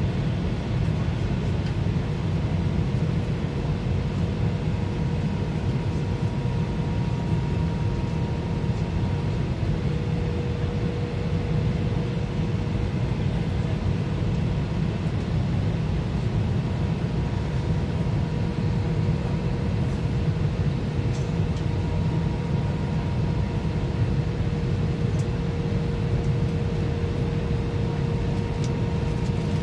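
Steady cabin noise of an Airbus A320 airliner in flight: a deep, even rumble of engines and airflow with a faint steady hum on top.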